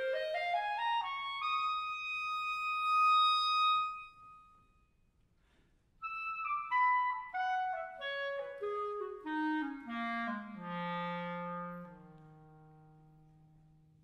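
Background music: a solo melodic instrument plays a quick rising run up to a held high note, breaks off briefly, then plays a falling run down to a long low note that fades away.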